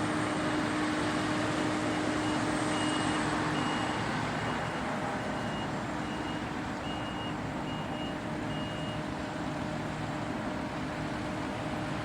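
Combine harvester running steadily, a broad machine rumble with a steady hum that drops away about four seconds in. A backup alarm beeps regularly, a little under twice a second, stopping near the end.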